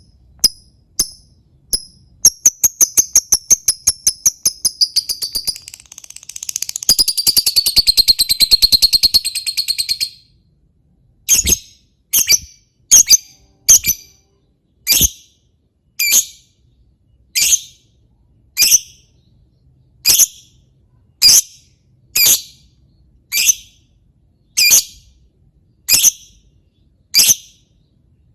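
Lovebird calling: a few high chirps, then a fast chattering run of calls for about eight seconds (the long 'ngekek' chatter keepers prize), then single sharp shrill calls about once a second.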